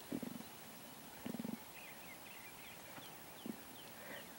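A hungry stomach growling in several short, low rumbles, with faint bird chirps in between.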